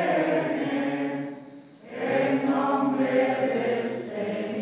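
A congregation singing a slow liturgical chant with long held notes; the first phrase dies away about a second and a half in, and the next phrase begins soon after.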